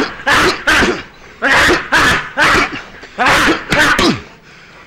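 A man's loud, breathy vocal bursts, about seven short ones in twos and threes, stopping about four seconds in.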